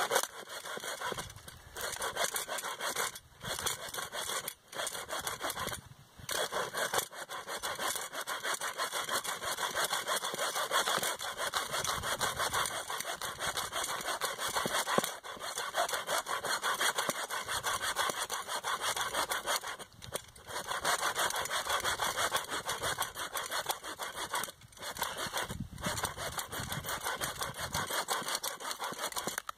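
Small hand saw cutting a dead black spruce stem low to the ground, in rapid back-and-forth strokes with a few short pauses. The wood is wet from the thawing, swampy ground, and the saw binds a bit in it.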